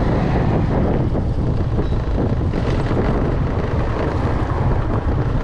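Heavy wind rush buffeting the microphone of a moving motorbike, with the bike's running noise underneath, steady throughout.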